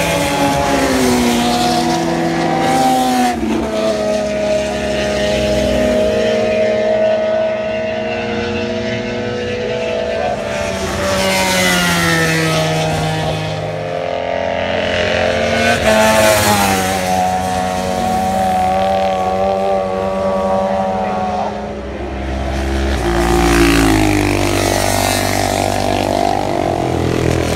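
Racing motorcycles passing at speed, several engines at once, each climbing in pitch through the revs and falling away as it goes by. The loudest passes come about 16 and 24 seconds in.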